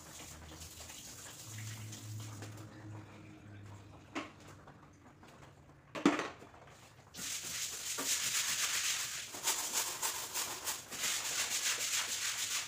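A sharp knock about six seconds in, then brisk scrubbing of a wet floor, a rapid scratchy rasp of many quick strokes.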